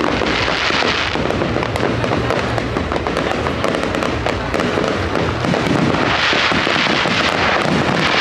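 Fireworks display going off continuously: dense crackling and popping from many shells at once. A thicker burst of hissing crackle comes near the start and another about six seconds in.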